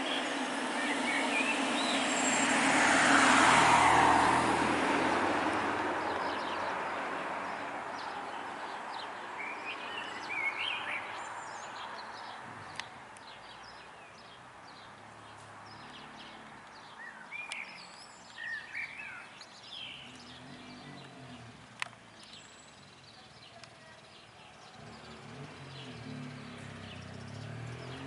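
A car passing on the village street, its noise swelling to a peak about three seconds in and fading slowly over the next several seconds. Small birds chirp in short bursts later, and a low rumble builds near the end.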